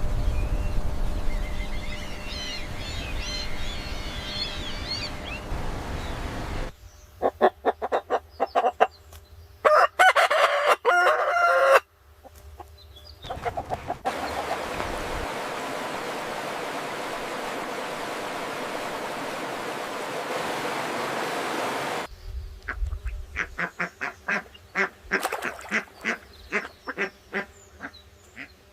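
Poultry calling in quick series, in two spells, with high chirping birdsong at the start. The calling is broken by about ten seconds of steady rushing noise.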